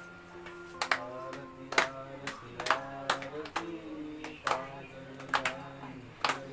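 A devotional song (bhajan) sung over a steady held instrumental drone, with hands clapping along to the beat in sharp claps every half second to a second.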